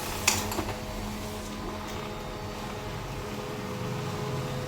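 HP LaserJet M1005 laser printer running a multi-page copy job: a steady motor hum with a sharp click about a third of a second in. The paper pickup gear now runs normally after its bent plunger was straightened.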